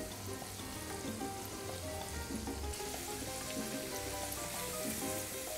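Hot oil sizzling as battered shrimp fritters fry in a skillet, a steady hiss that gets brighter about halfway through, under background music.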